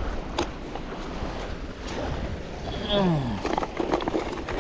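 Wind buffeting the microphone over the wash of surf, with a few sharp clicks and a short falling vocal exclamation about three seconds in.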